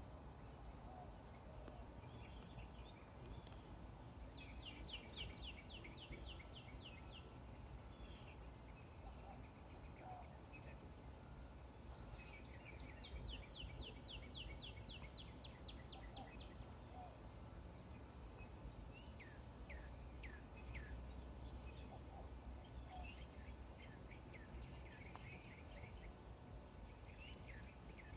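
Faint songbirds calling: two rapid, high trills and scattered short chirps, over a steady low rumble of background noise.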